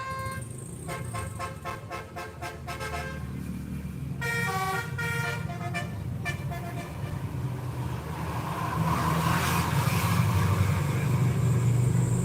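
A bus's 'telolet' multi-tone musical air horn playing a tune of stepped notes, including a quick run of short toots, then another short phrase. In the last few seconds the engine of a heavy bus gets louder as it passes close.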